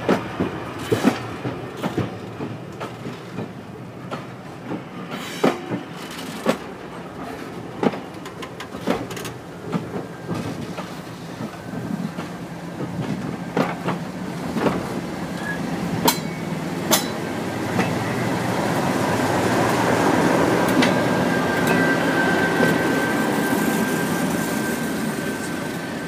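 Passenger coaches rolling past, their wheels clicking over rail joints, then the running of a BR Class 37 diesel locomotive's English Electric V12 engine growing louder as it passes, with a steady high whistle over it.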